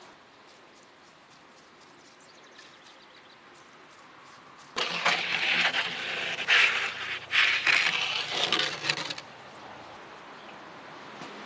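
Wood-fired brick oven: from about five seconds in, a loud, rough stretch of scraping and crackling lasts about four seconds, in uneven strokes, as a peel works across the oven floor beside the burning wood.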